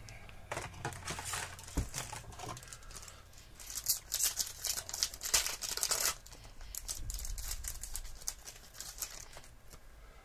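Crinkling and tearing of a trading card pack's wrapper as it is opened, in two main spells of a couple of seconds each, then lighter rustling as the cards are handled.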